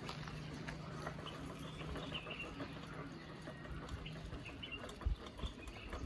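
Faint outdoor ambience: a low steady hum that stops about four seconds in, scattered short high chirps, and a few low thumps near the end.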